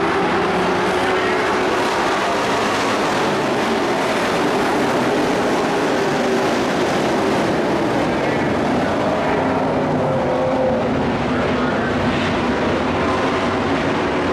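A field of dirt-track race trucks running together at racing speed: a steady, dense engine drone whose pitch wanders slightly.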